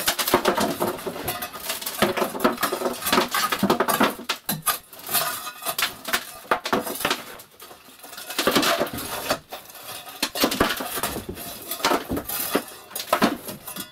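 Soot and debris being scraped out of a clogged brick stove flue through an opening in the brickwork, falling into a basin held below, with irregular scraping and rattling. The flue is fully clogged with soot.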